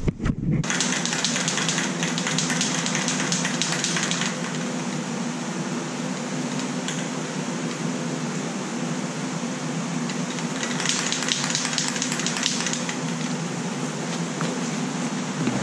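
Spray can of self-etching primer hissing in two long passes, the first about three and a half seconds from the start and the second about ten seconds in, over the steady hum of a ventilation fan.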